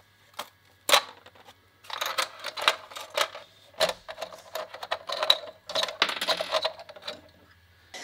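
Freshly 3D-printed plastic parts clicking and cracking as they pop off a flexed spring-steel print sheet, with the loose pieces rattling against each other in several quick flurries.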